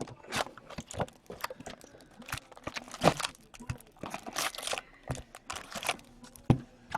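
Plastic and foil card-pack wrappers crinkling, with irregular crackles as hockey card packs are handled and torn open.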